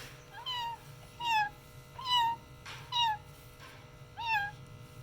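Pet green parrot mimicking a cat's meow: five short rising-and-falling meow calls, about one a second.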